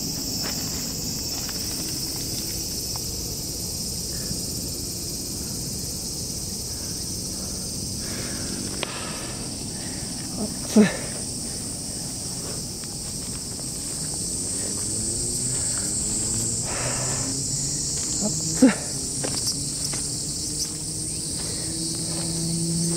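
Steady high-pitched insect chorus in summer woodland, with two sharp knocks, about eleven and nineteen seconds in.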